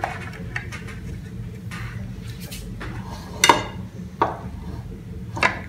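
Metal table knife scraping and clinking against a ceramic bowl while scooping chicken-mayonnaise mixture, with a few sharp clinks, the loudest about three and a half seconds in.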